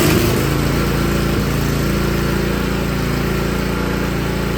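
Small gas engine of a Makita air compressor running steadily with the drive belt off, so that the pump is disconnected; it has just caught and runs smoothly, showing that the engine is sound and the starting trouble lies on the pump side.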